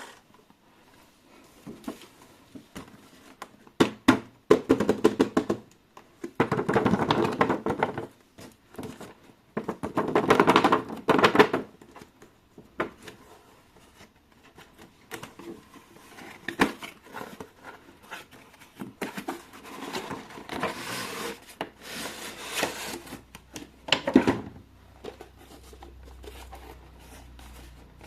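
Toy packaging being handled and opened: irregular bursts of rustling and crinkling with scattered clicks and knocks.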